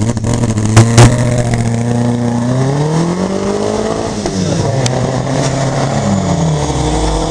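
Zastava rally car's engine revving hard as it pulls away, its pitch climbing for a couple of seconds, dropping around four seconds in, then climbing again. Two sharp bangs about a second in are the loudest sounds.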